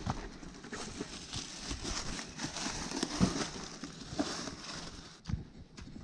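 Mountain bike rolling over a trail of dry fallen leaves: the tyres crunch and rustle through the leaves, with irregular knocks and rattles from the bike over bumps.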